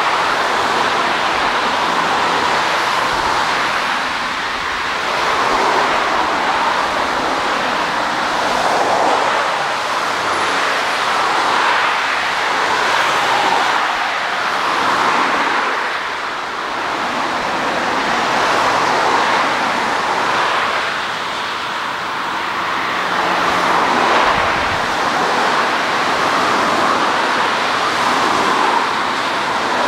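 Jet engines of a taxiing Boeing 787 airliner running: a steady rushing noise that slowly swells and eases every few seconds.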